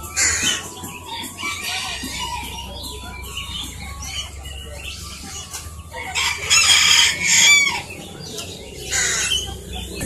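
A rooster crowing loudly about six seconds in, with shorter loud calls near the start and near the end, over steady chirping of caged birds.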